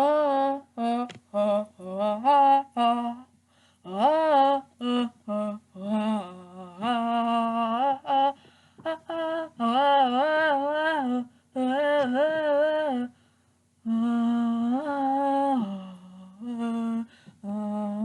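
A single voice humming and singing a wavering melody, unaccompanied, in short phrases with brief pauses between them.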